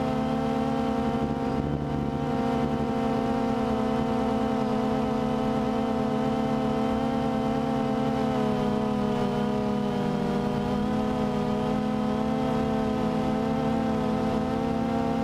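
DJI Phantom 2 quadcopter's brushless motors and propellers humming steadily, heard through the camera on the drone itself; the pitch wavers slightly about nine seconds in as the motor speed shifts.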